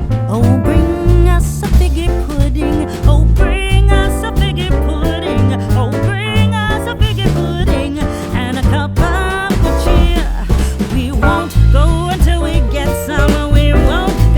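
Background music with a steady bass beat and a melody that bends like singing or a lead instrument.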